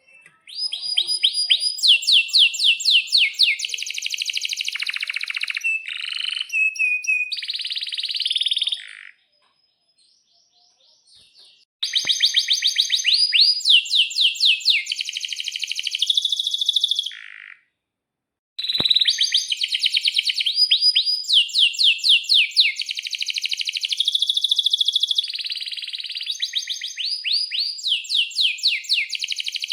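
Domestic canary singing: long, fast trills and rolled runs of high notes, in three long bouts with two short pauses between them.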